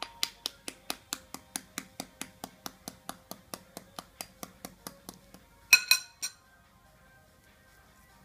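Fingertip tapping on a boiled egg's shell, steady sharp clicks about three a second, cracking the shell all over to loosen it for peeling. A little past halfway come a few much louder sharp knocks.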